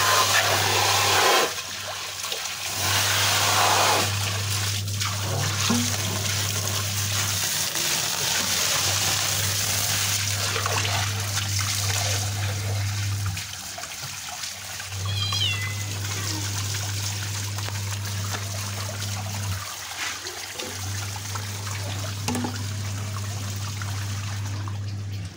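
Water from a hose running into and through a mesh diesel air filter element as it is washed out, a steady splashing pour, loudest in the first second or so. A steady low hum runs under it, and there is one short high call about halfway.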